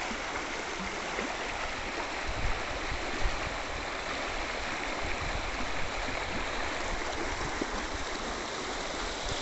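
Floodwater rushing along a street with a steady roar, with a few brief low thumps; the sharpest comes a little over three seconds in.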